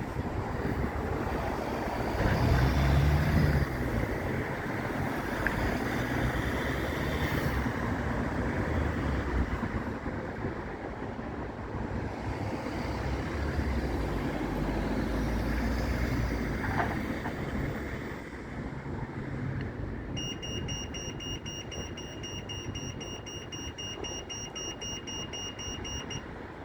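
Wind buffeting the microphone in gusts over a steady low rumble. A steady high-pitched tone sounds for about the last six seconds.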